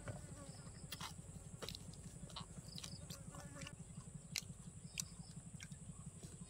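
Mouth sounds of someone eating: short crisp clicks and crunches of chewing fresh greens and crispy pork, a few times. Under them runs a steady, rapid low throbbing.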